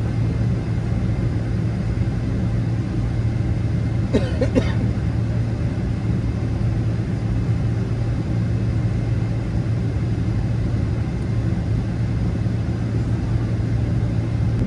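Steady low cabin drone of a Boeing 777-300ER taxiing after landing, with a brief short sound about four seconds in.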